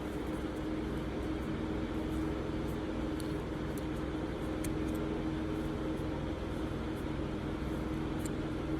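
A steady machine hum with a constant low tone, and a few faint small ticks.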